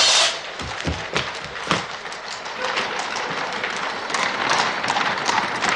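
Clamour of an agitated crowd, a haze of voices and scattered knocks, opening with a sharp crash.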